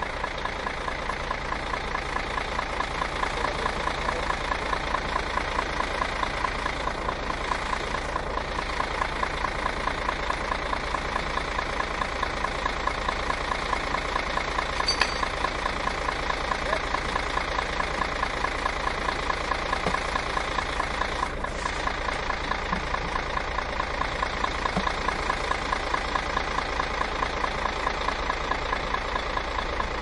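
Bus engine idling steadily with an even, pulsing beat. There is one brief click about halfway through.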